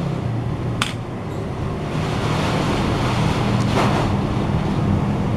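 FM radio hiss from a Nokia H65's built-in loudspeaker: steady static with no clear station, over a low hum. A single key click about a second in.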